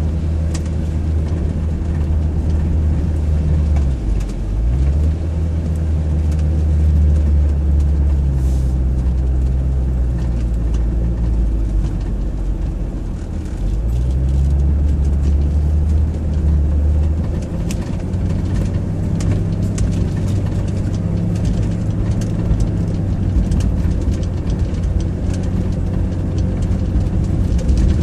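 Range Rover P38 driving over a rough grass field track, heard from inside the cabin: a steady low engine and road drone whose note dips and picks up again twice, about four and thirteen seconds in. In the second half, frequent small knocks and rattles come through over the bumps.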